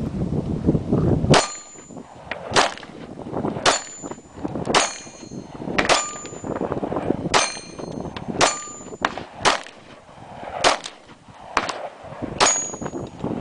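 Steel targets clanging and ringing as pistol rounds from a Glock 23 strike them, about a dozen hits roughly a second apart, each sharp crack followed by a brief metallic ring.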